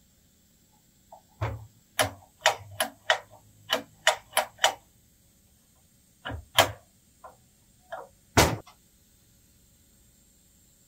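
Steel parts of a home-made lathe follow rest knocking and clicking against each other and a steel bench as they are fitted together by hand. A quick run of about nine sharp clicks comes first, then a few scattered knocks, with one heavier knock later on.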